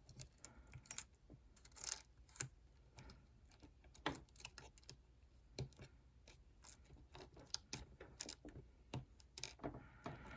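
Faint, irregular small clicks and taps of iPhone internal parts being handled and set into place during reassembly.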